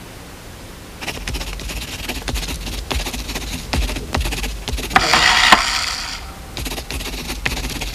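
Pencil scratching on paper in quick sketching strokes, starting about a second in, with a louder rasping stretch around the middle.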